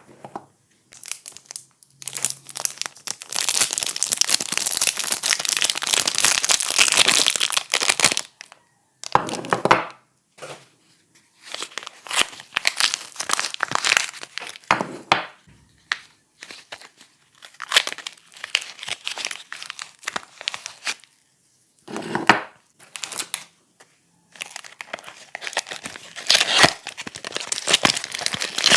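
Soap packaging being crinkled and torn open by hand, in bursts of crackling with short pauses between.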